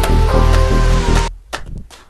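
Background music with a steady beat that breaks off about a second in, followed by a few short clicks.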